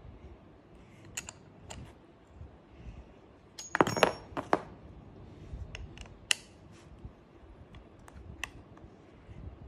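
Light metal clicks and clinks as a steel cutting blade, its nut and a metal rod tool knock against a battery grass trimmer's head during fitting, with a cluster of sharper clinks about four seconds in.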